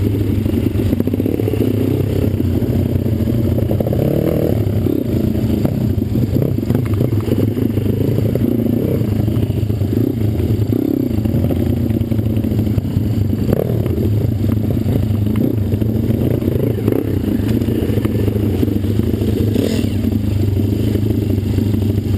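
Pit bike's small single-cylinder engine running steadily with a slightly wavering pitch, along with clattering and rattling.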